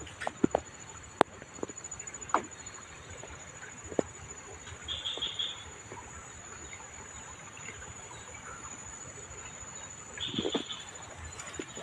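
Outdoor ambience with a steady high-pitched hum, broken by short bird calls about five and ten seconds in and a few sharp clicks and knocks in the first four seconds.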